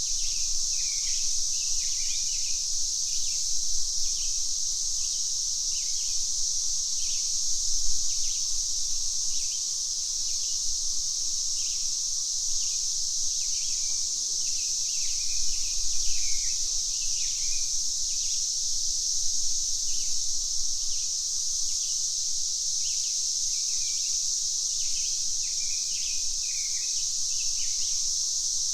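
Cicadas buzzing in a steady high-pitched drone, with birds giving short chirps every second or so over it.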